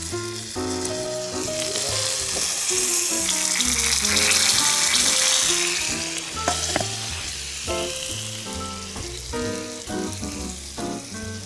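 Bananas frying in a pan, a sizzle that swells to its loudest midway and then eases off, over background music.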